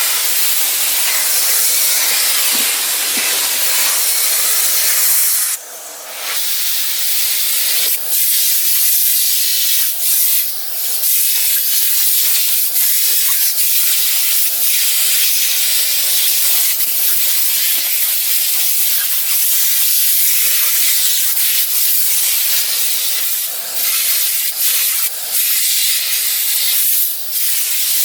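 Electrolux Ergospace canister vacuum cleaner running, a steady rushing hiss of suction through the hose and nozzle. The rush dips briefly several times, most clearly about six seconds in.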